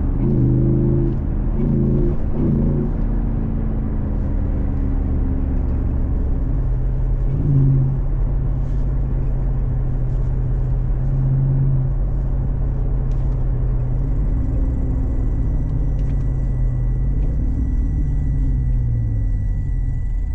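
Jeep SRT8's Hemi V8 pulling through the gears under way, its note rising and then dropping at each shift. A thin, steady high whine joins in about two-thirds of the way through.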